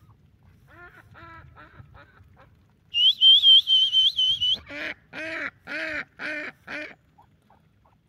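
Domestic ducks quacking: a series of about six quacks that fade off, then five loud quacks in quick succession about five seconds in. Between the two series, for about a second and a half, a loud high warbling whistle sounds, the loudest thing heard.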